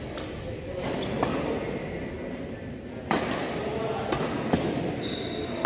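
Badminton rackets striking a shuttlecock in a rally: a string of sharp cracks a second or so apart, the loudest about three seconds in and again at the end, echoing in a large hall.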